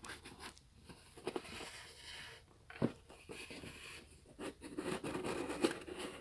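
Corrugated cardboard boxes being handled: a box sliding out of its cardboard sleeve and being lifted and tilted, with soft scraping and rustling and scattered light clicks, one sharper knock about three seconds in.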